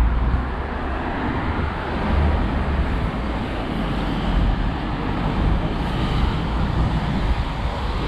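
Road traffic: cars driving past in a steady run of passing-vehicle noise.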